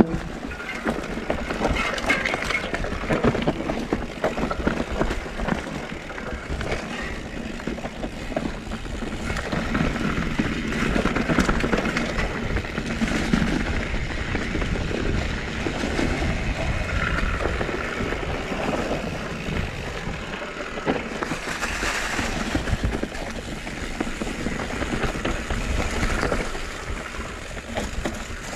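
Mountain bike ridden down a trail: tyres rolling over dirt and rocks, with frequent knocks and rattles from the bike over a constant low rumble.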